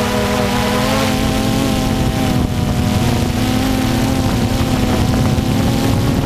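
DJI Phantom quadcopter's motors and propellers whining steadily, heard up close from the camera on board, over a rushing hiss; the pitch wavers slightly as the drone manoeuvres.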